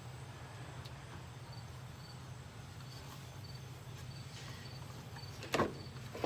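Steady low hum with faint high ticks, and one sharp knock about five and a half seconds in.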